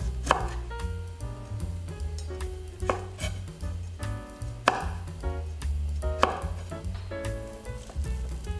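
A knife chopping vegetables on a cutting board: a few sharp chops a second or two apart, over background music with a steady bass line.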